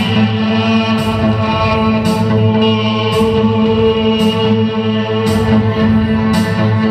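A band playing live and amplified: a held, droning chord with a bright hissing accent about once a second.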